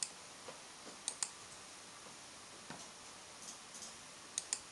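Sharp clicks of computer mouse buttons over a faint hiss: one click at once, a quick double-click about a second in, a few softer clicks a little past three seconds, and another double-click near the end.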